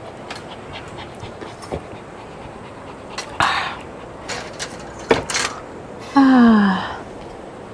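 Clinks, knocks and scrapes of a wire grill grate being handled and lifted off a tabletop charcoal brazier. The loudest sound is a short falling whine a little after six seconds in.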